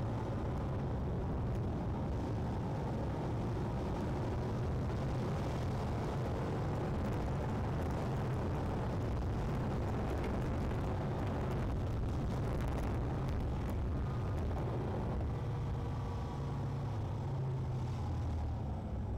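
Car driving along, heard from inside the cabin: a steady low rumble of engine and road noise that eases slightly near the end.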